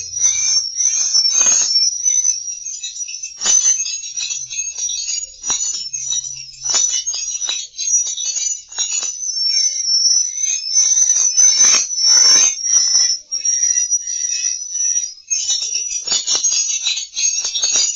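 Edible-nest swiftlet lure recording: dense, rapid high-pitched chirps and twitters running almost without a break, the kind of call-and-roost sound played in swiftlet houses to draw the birds in to roost.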